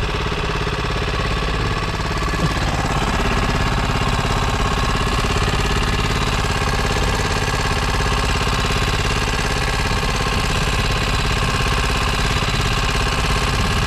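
Small portable generator engine running steadily at an even speed, with a constant pitch and a fast, regular pulse.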